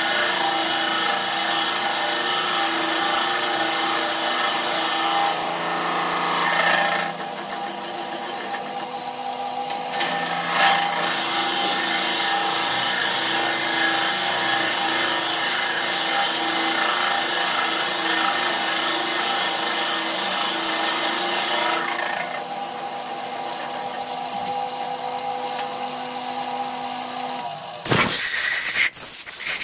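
Wood lathe running while a drill bit in the tailstock chuck bores into the end of a spinning wooden blank: a steady motor hum under a hissing cut that eases off about seven seconds in and again about two-thirds of the way through. Near the end comes a louder, rough rush as a gloved hand works against the spinning wood and throws off shavings.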